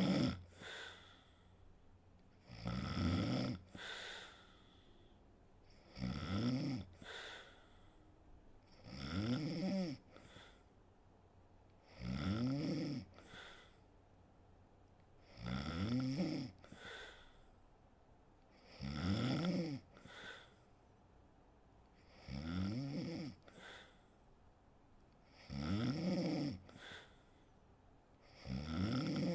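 A sleeping woman snoring in a steady rhythm, about one snore every three seconds. Each snore is a pitched rasp of about a second that rises and falls, followed by a short second breath sound.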